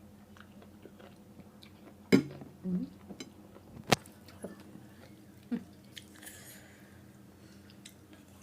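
A person eating a bowl of Thai boat noodles: chewing, with a few sharp clicks, the two loudest about two and four seconds in.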